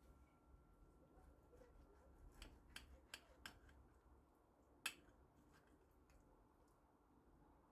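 Faint clinks of a metal knife and fork against a plate while a portion of baked cabbage casserole is cut: a few light clicks in quick succession around the middle, then one sharper click about five seconds in.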